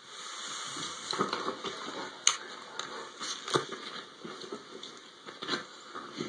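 Bedding rustling and scuffling with a few sharp knocks as a large dog scrambles up onto a bed with a duvet on it; the loudest knock comes a little over two seconds in.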